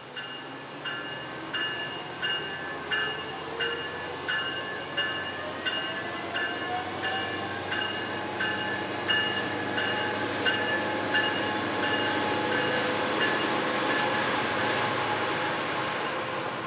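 Departing passenger train hauled by a Siemens SC-44 Charger locomotive: its bell rings about one and a half times a second, then stops. A whine rises in pitch as the train pulls away, under a growing rushing noise that is loudest near the end. The locomotive's Cummins engine itself makes little noise.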